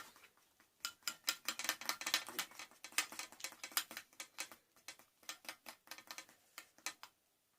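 A utensil stirring clear liquid glue with yellow paint in a container: quick, irregular clicks and taps of the utensil against the container, several a second, ending near the close.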